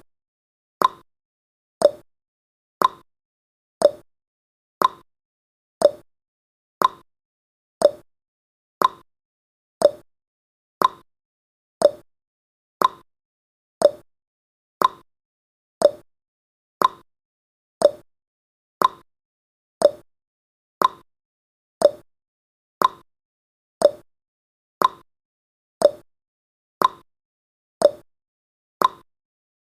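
Countdown timer's tick sound effect: one short, sharp tick every second, evenly spaced, with silence between ticks.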